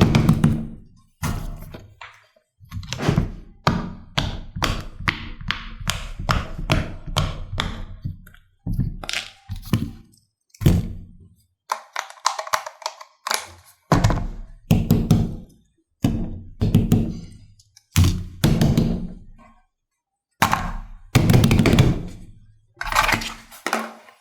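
Silicone pop-it fidget toys and other fidgets being pressed and handled: an irregular run of dull pops, taps and thunks, in quick clusters separated by short pauses.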